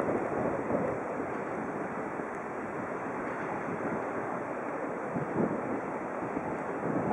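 Wind buffeting the microphone: a steady rushing noise with irregular gusts and no distinct engine note.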